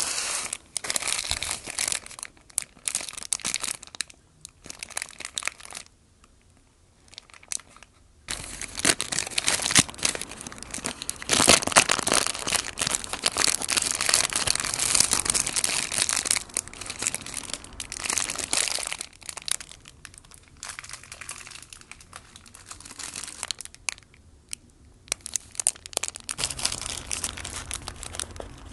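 Paper burger wrapper crinkling and rustling as hands open and fold it back from a burger. It comes in irregular bursts, with a near-quiet pause of a few seconds about a quarter of the way in and the densest crinkling in the middle.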